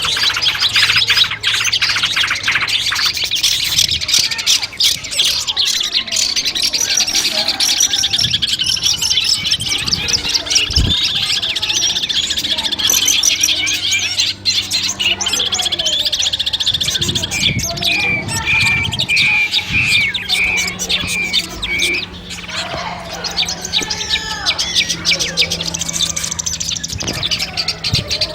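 Long-tailed shrike (cendet) singing a dense, rapid, scratchy chattering song. About two-thirds of the way in it gives a run of evenly repeated whistled notes.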